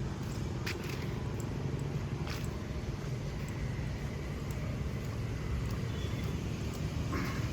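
City street traffic: a steady low rumble of passing motorbikes and cars, with a few short sharp clicks.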